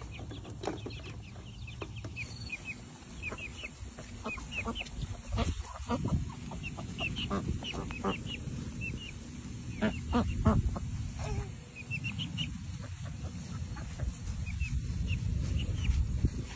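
Baby chicks peeping: many short, high chirps, scattered and repeated, over a low background rumble.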